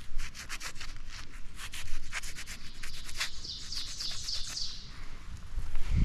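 A quick run of short scraping and rubbing strokes in soil as a target is dug out, then a high pulsing warble lasting about a second and a half.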